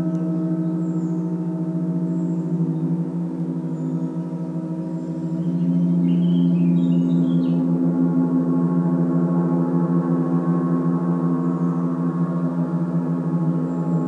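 Gong resonating in a sustained wash of many overlapping tones, swelling again about halfway through, with faint bird chirps above it.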